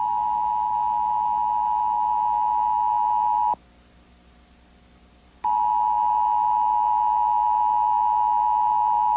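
Emergency Broadcast System attention signal: a loud, steady two-tone alarm pitched just under 1 kHz. It cuts off sharply about three and a half seconds in, leaves a quiet gap of about two seconds, then starts again.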